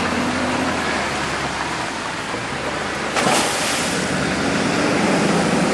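Hummer H1 driving off road: a low engine hum under a rushing noise that grows louder about three seconds in.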